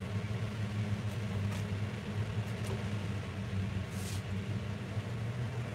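Countertop blender motor running steadily, held below full speed because the jar holds only about two cups of mixture. A few faint light ticks sound over the hum.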